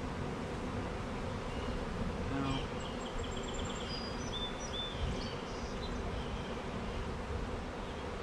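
Many honeybees in flight around an open hive, just shaken in from a package, making a steady, dense buzzing hum.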